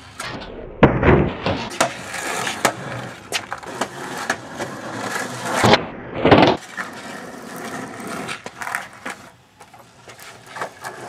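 Skateboard wheels rolling on an asphalt driveway, with loud clacks of the board striking the ground about a second in and twice more around six seconds in as tricks are attempted.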